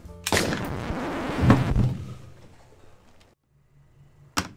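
A film gunshot sound effect: a sudden loud bang with a rumbling tail lasting about two seconds, followed near the end by a single sharp crack.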